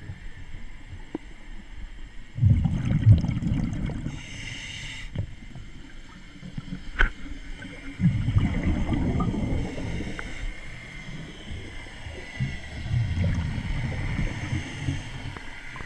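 Scuba diver breathing through a regulator underwater: three bursts of exhaled bubbles of about two seconds each, with a high hiss of an inhale between the first two. A single sharp click about seven seconds in.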